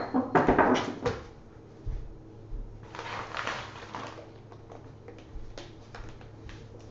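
Knocks and clicks of a replacement laptop screen panel and its packaging being picked up and handled, with a brief rustle about three seconds in and a few light ticks after.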